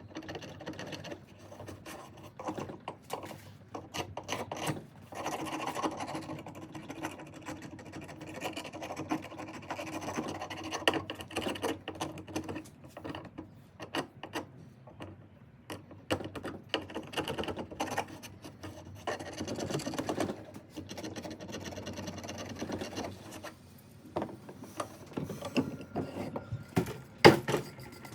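A hand blade scraping and cutting away the soft grip material of a ratchet handle, in irregular scraping strokes. A couple of sharp knocks come near the end.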